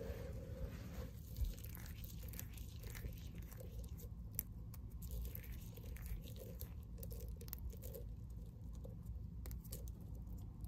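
Hands raking through and pinching a heap of small cut pieces of green and white bar soap, the pieces crunching and clicking against each other in a dense run of small crackles.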